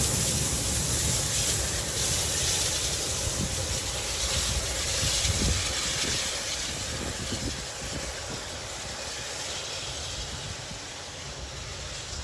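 NSWGR AD60-class Beyer-Garratt steam locomotive 6029 and its carriages moving away: a rumble and hiss that fades steadily as the train recedes.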